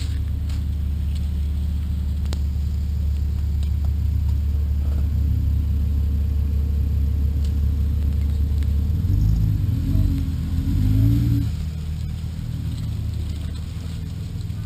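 Jeep Wrangler Unlimited's engine rumbling low and steady as it crawls along a dirt trail, heard through a camera mounted on the body. The engine revs up about nine seconds in and settles again after about two seconds.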